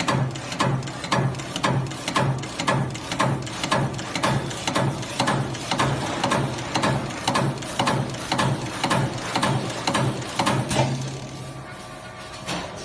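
CNC turret punch press punching sheet metal: sharp, regular hits at about two a second over a steady machine hum. The punching stops about eleven seconds in, leaving a quieter running hum.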